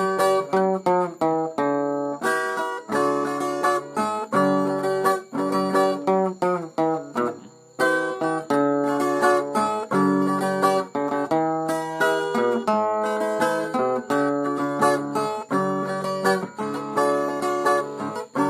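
Instrumental break on a viola caipira, the Brazilian steel-strung ten-string guitar: a picked melody over strummed chords, with a brief pause about eight seconds in.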